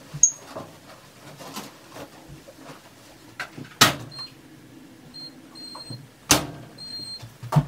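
Stacked washer-dryer being loaded with sheets. Two loud thumps of the appliance doors shutting, the second of them the dryer door. Short high electronic beeps come from the control panel as the buttons are pressed.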